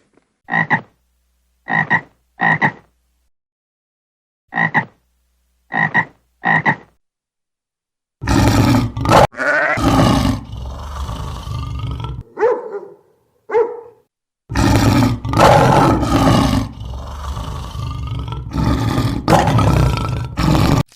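Farm animal calls: two sets of three short, sharp calls in the first seven seconds, then from about eight seconds a long, loud run of rough, drawn-out calls with short breaks.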